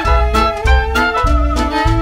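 Background music in a swing-jazz style, with a steady bass beat under sustained instrument notes.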